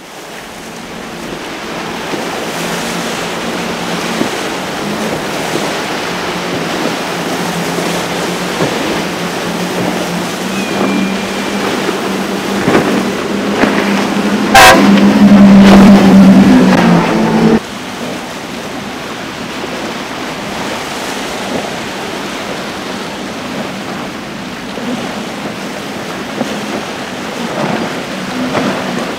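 Outboard motors of center-console boats running at speed, a steady low drone over the rush of spray and waves. Around the middle the sound swells to its loudest for about three seconds, then cuts off abruptly.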